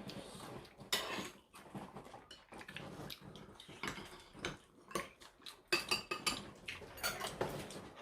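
Cutlery clinking and scraping against bowls and dishes while eating a meal: scattered light clinks, thickest about five to seven seconds in.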